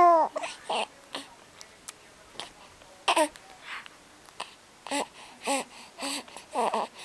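A young baby cooing and babbling: a string of short vocal sounds, several of them arching up and down in pitch, the loudest right at the start.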